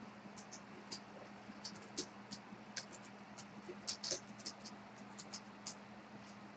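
Faint, irregular small clicks and scratches over a low, steady hum.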